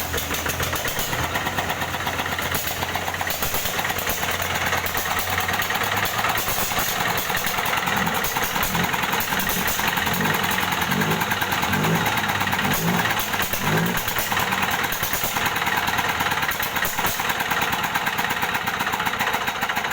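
Rice milling machine running steadily, a continuous engine-driven mechanical noise.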